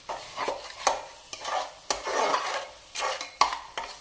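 Steel spatula stirring and scraping frying masala paste in an aluminium pressure cooker, with a few sharp clinks of metal on the pot.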